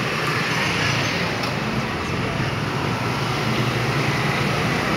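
Steady street traffic noise: a continuous hum of passing motor vehicles, with no single event standing out.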